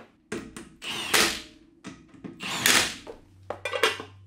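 Impact wrench run in short bursts, rattling as it drives the lugs home to refit a car's front wheel.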